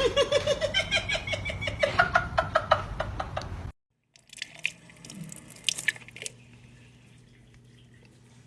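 Water sounds: a fast run of pulses that rises in pitch for about three and a half seconds, then stops abruptly. After that come quieter scattered drips and clicks.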